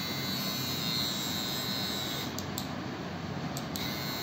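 Cordless metal T-blade hair clipper running steadily with its blade motor humming; its high whine fades for about a second and a half in the middle.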